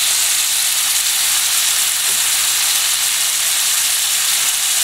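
A New York strip steak and a tomato-jalapeño sauce sizzling steadily in a hot frying pan.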